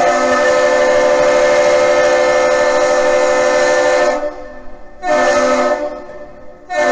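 Freighter Mesabi Miner's whistle sounding a long blast of about four seconds, then short blasts, the long-short-short salute given when passing under the Duluth Aerial Lift Bridge.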